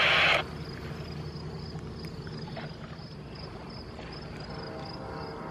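Insects chirping in a faint, evenly repeating high pulse over a steady low outdoor rumble.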